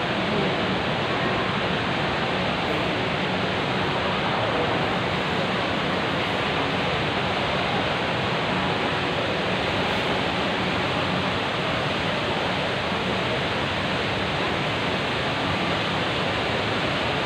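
The HSBC Rain Vortex indoor waterfall pouring down into its pool: a constant, even rush of falling water.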